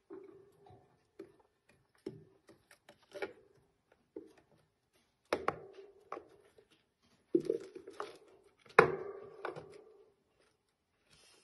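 A pet hamster clambering about its wire cage and plastic houses: irregular knocks and taps on plastic and wire, with a few louder knocks in the second half.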